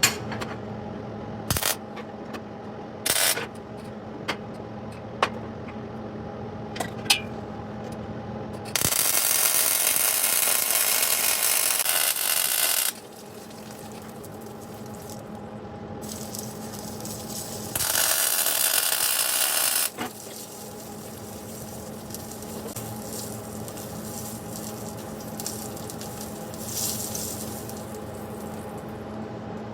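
Two bursts of an electric welding arc, a steady hissing crackle: one about four seconds long near the middle and a shorter one of about two seconds a little later. A steady hum runs underneath, with a few sharp clicks in the first seconds.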